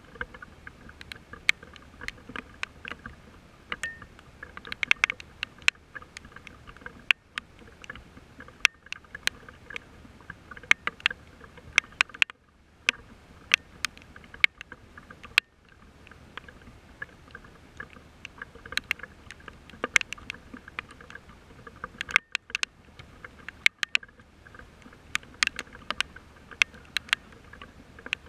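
Rain falling, with many irregular sharp taps of drops over a steady hiss.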